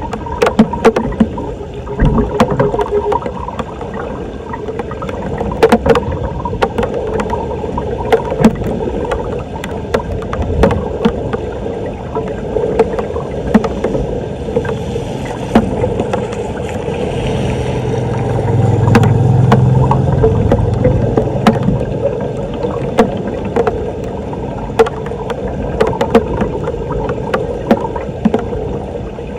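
Floodwater splashing and gurgling at a street storm drain as it is cleared, with frequent sharp clicks and knocks. A low drone swells and fades midway.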